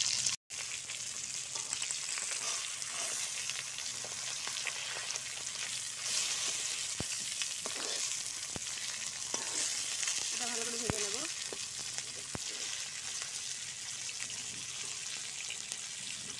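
A whole spice-marinated tilapia frying in hot oil in a karahi: a steady sizzle and hiss, with a few light clicks of the metal spatula against the pan. The fish is nearly done frying. The sound cuts out briefly about half a second in.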